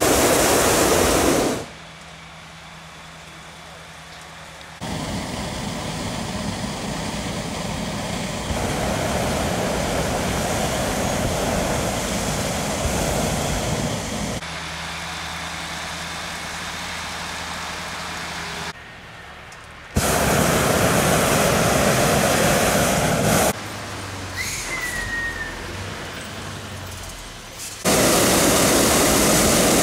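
Hot-air balloon propane burners firing in several loud blasts of a few seconds each, starting and stopping abruptly, with a steady low hum in the quieter stretches between.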